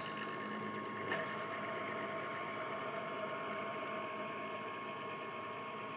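Drill press running steadily while a reamer is fed down through a dowel-pin hole in a bevel gear, with a single click about a second in.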